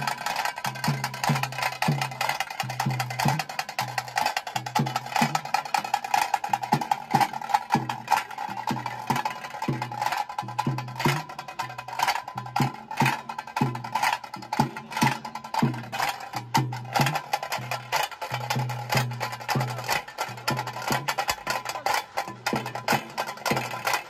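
Tasse drums played with sticks in a fast, dense rhythm of sharp cracks, with a deeper drum thumping underneath: the beat played for a tiger dance (pili nalike).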